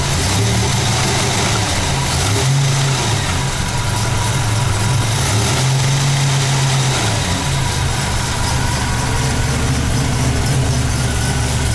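Buick Grand National's turbocharged 3.8-litre V6 idling a little rough, its idle wavering up and down for the first several seconds before settling steadier; the engine is running rich.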